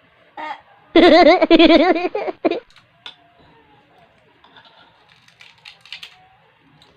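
A person laughing loudly in a high, quickly pulsing giggle, lasting about a second and a half, then faint small sounds.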